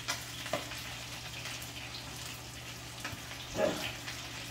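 Breaded chicken frying in hot oil: a steady sizzle with a few brief pops, the loudest about three and a half seconds in.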